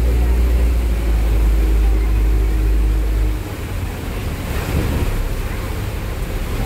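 Ferry's engine running with a steady low drone over the rush of its wake and wind; about three and a half seconds in the drone drops away, leaving a rougher rumble and wash of water.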